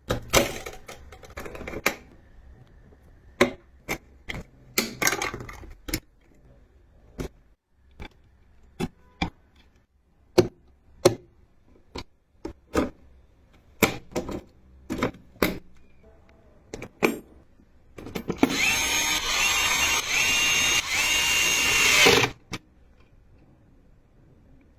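Sharp clicks and knocks of computer parts and screws being handled and fitted during a desktop PC build. Near the end, a small power tool runs steadily for about four seconds.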